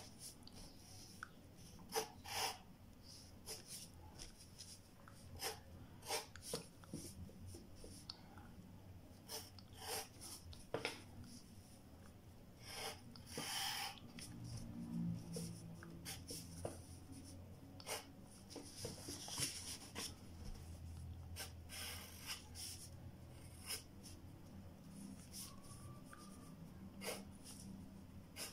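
Wooden graphite pencil scratching on paper while sketching: faint short scrapes at irregular intervals, a few of them longer strokes.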